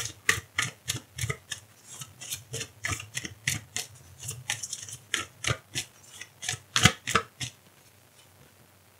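A deck of oracle cards shuffled by hand: a quick run of crisp card snaps, about three a second, stopping near the end.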